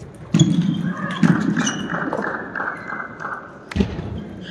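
Table tennis ball bouncing repeatedly in a quick, even rhythm of about five light clicks a second, echoing in a large hall, then a single sharper click near the end.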